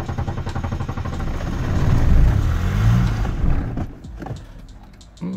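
Mercedes-Benz 300D W123 five-cylinder diesel on a cold start at −14 °C, after the glow plugs were heated twice. The starter cranks it in rapid even pulses, the engine catches about a second and a half in and runs up loudly, then drops back to a quieter running sound near the end.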